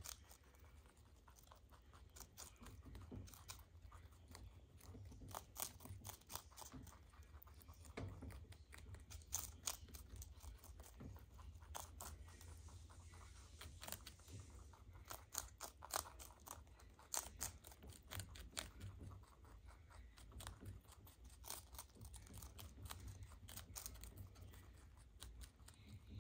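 Two baby rabbits chewing and tearing cabbage leaves: faint, irregular crunching made of many small quick clicks.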